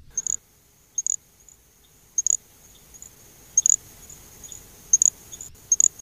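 Little grass frog calling: very high-pitched, insect-like chirps in quick pairs, six pairs about a second apart, over a faint steady high trill.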